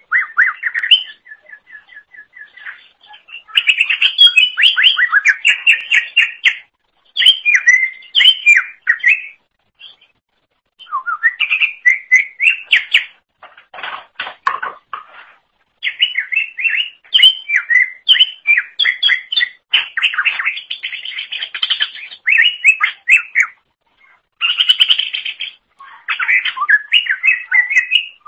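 A green leafbird (cucak ijo) singing hard: phrase after phrase of rapid chirps, whistles and trills with short pauses between them. About halfway through there is a harsher, rasping run of notes.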